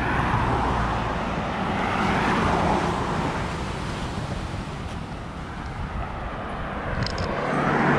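Cars passing on a road, their tyre and engine noise swelling and fading three times, the last pass the loudest near the end.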